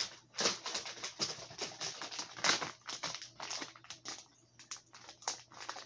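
Crinkling and rustling of a clear plastic bag of soft plastic fishing lures being handled, in quick irregular crackles and clicks, with a sharper crackle about two and a half seconds in.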